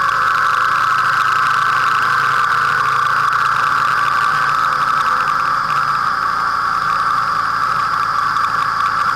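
Motorcycle running at a steady cruising speed, heard through the dashcam's own microphone: an even engine drone mixed with wind rush, with no change in pitch.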